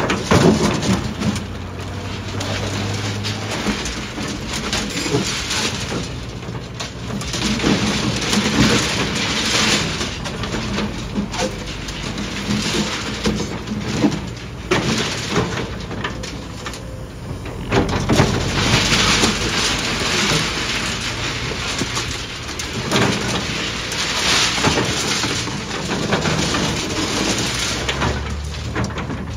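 Crawler excavator's diesel engine running under load while its steel bucket scrapes and crunches through broken concrete slabs and tangled rebar, in repeated surges of grinding and clattering.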